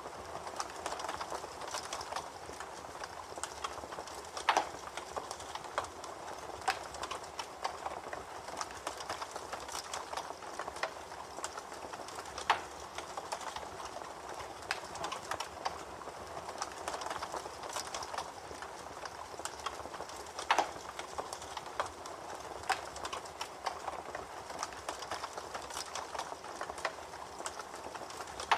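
Campfire crackling: a steady hiss of burning wood with constant small snaps and a few louder pops.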